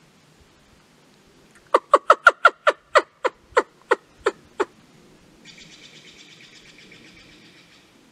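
An animal calling: a run of about a dozen sharp, clipped calls that slow down as they go, followed about a second later by a fainter, buzzy, rapidly pulsing call lasting a couple of seconds.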